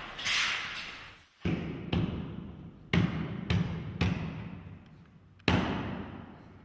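A series of about six dull knocks, irregularly spaced, each dying away over about half a second, as glass is pressed and knocked into place on a car body while a side window is set into its sealant.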